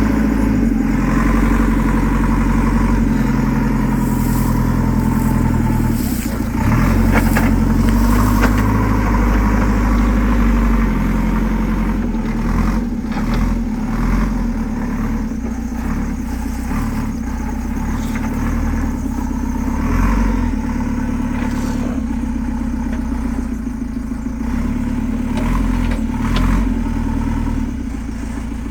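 JCB 3CX backhoe loader's four-cylinder diesel engine running steadily under load, with scattered knocks and clanks from the machine as it moves.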